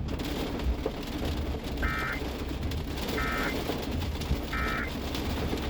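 Three short identical bursts of warbling digital data tones, about a second and a quarter apart: the SAME end-of-message code of an Emergency Alert System weather warning. They sound over steady radio hiss and a low hum.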